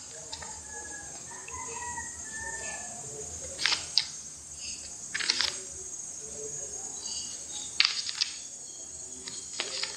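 Paper pages of a hardcover notebook being flipped by hand: light rustling broken by several crisp page flaps, some coming in quick pairs.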